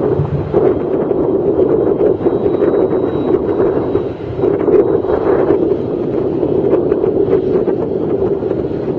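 Airbus A319's twin jet engines running at low taxi thrust as the airliner taxis onto the runway: a steady jet noise with a faint high whine, and some wind on the microphone.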